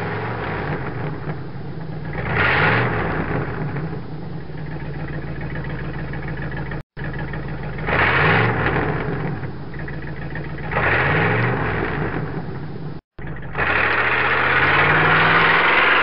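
A car engine idling and being revved several times, each rev rising and falling back. The sound cuts out abruptly for a moment twice, as at edits.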